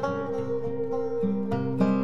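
Background music played on plucked acoustic strings, with a steady run of picked notes over a held bass.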